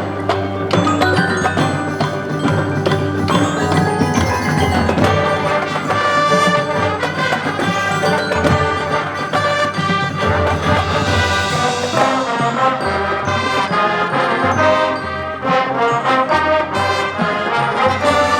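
Marching band playing: brass chords over a steady low bass, with mallet percussion such as marimba and glockenspiel from the front ensemble.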